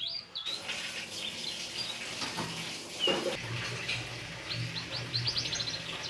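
Common hill myna calling: a series of whistles and chirps, with a quick run of short rising notes near the end.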